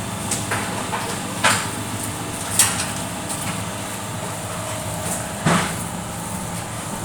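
Semi-automatic hydraulic paving-block press running with a steady hum, broken by several sharp metal clanks from the mould and press.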